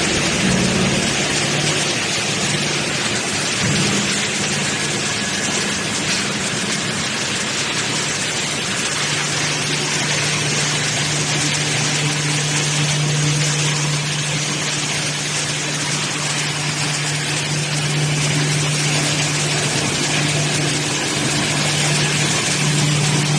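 Industrial wood chipper running and chipping waste wood: a steady low machine hum under a dense, even hiss.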